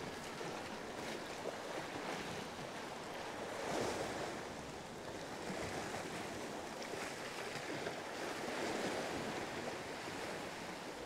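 Sea waves washing steadily, with some wind on the microphone; the wash swells up briefly about four seconds in and again about nine seconds in.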